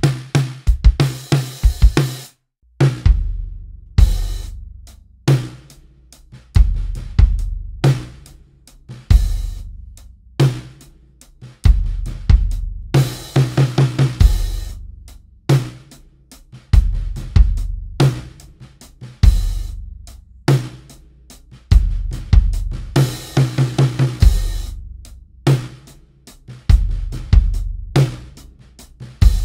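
Drum kit playing a groove of kick, snare and cymbals, the bass drum deep and long-ringing as picked up by a sub kick mic, with quick fills now and then. After a short break about two and a half seconds in, the sub kick is used as a low-end room mic several feet back, with a marching bass drum in front resonating with the kick.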